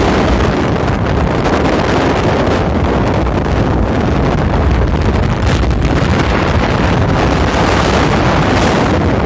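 Steady, loud wind buffeting the microphone of a phone carried on a moving motorcycle, a constant rushing noise with no clear engine note.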